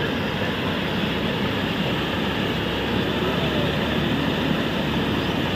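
Steady rushing of floodwater pouring across a submerged road and spilling over its edge: a drain in spate after continuous rain.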